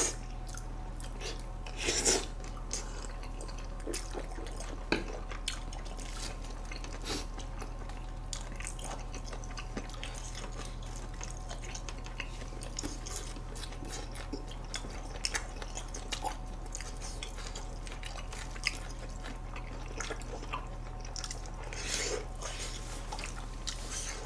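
Close-miked eating: wet chewing of spicy stir-fried food, with a few louder slurps near the start and near the end and light clicks of chopsticks and spoons.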